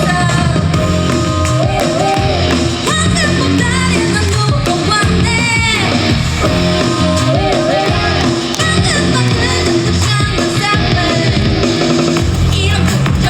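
Upbeat Korean pop song with a female lead vocal over a steady, heavy beat, played loud through a stage sound system.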